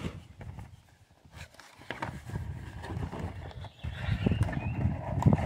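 Cardboard boxes handled on a table: a small box is set down and its flaps opened, giving a scatter of knocks and taps with cardboard scraping and rustling.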